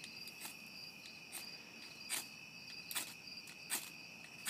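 Repeated scrapes of a knife striking a ferrocerium fire steel rod to throw sparks onto tinder: about six quick, sharp scrapes a little under a second apart. Crickets chirp steadily underneath.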